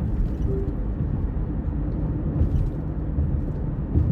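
A steady low rumble with a fainter hiss above it, even and unbroken.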